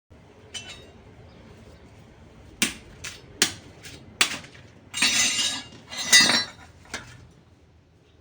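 Kitchen clatter: pots and utensils knocked and clinking, a few sharp knocks spaced a second or so apart, then two longer clattering bursts about five and six seconds in.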